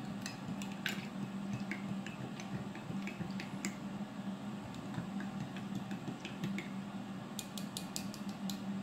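Plastic spoon stirring dish soap into water in a ceramic mug, clicking and scraping against the mug's sides in irregular light taps, with a quick run of clicks near the end.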